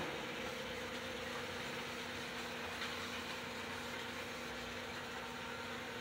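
Small electric model trains running around their track loops: a steady whir of motors and wheels rolling on the rails, with a steady low hum underneath.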